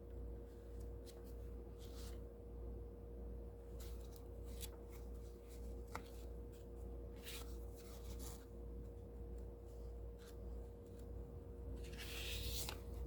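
Pages of a paper tarot booklet being handled and turned, with short soft paper rustles every second or so and a longer, louder rustle near the end, over a faint steady hum.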